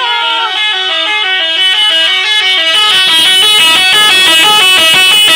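Indonesian bus telolet horn, a multi-tone air horn, playing a loud, fast repeating melody of short stepped notes. The notes come quicker from about halfway through.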